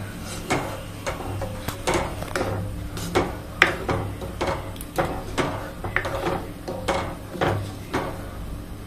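A spatula stirring watery gravy in a steel kadai, scraping and knocking against the pan about two to three times a second as the freshly added water is mixed in.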